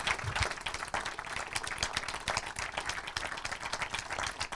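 Small audience applauding, a steady patter of hand claps.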